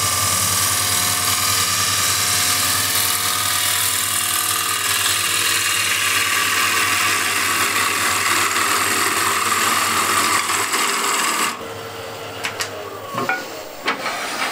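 Bowl gouge cutting the inside of a spinning, nearly dry Norway maple bowl on a wood lathe: a loud, steady hissing cut over the lathe's low hum. The gouge's edge is fresh from a coarse 60-grit wheel. About eleven and a half seconds in the cut eases off, leaving the quieter lathe and a few light knocks.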